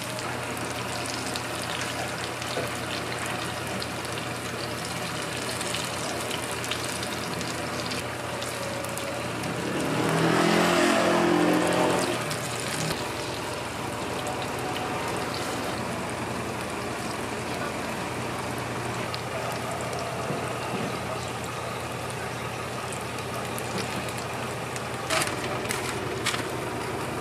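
Battered apple-jam sandwiches deep-frying in a large wok of hot oil, a steady sizzle and bubbling. About ten seconds in, a louder sound swells up for about two seconds, and near the end there are a few sharp clicks.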